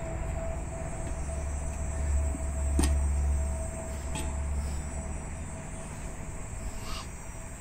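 Rubber bumper plate being loaded onto the sleeve of a farmer's carry handle, with one sharp knock a little under three seconds in and lighter clicks later. Under it runs a low rumble that swells in the middle.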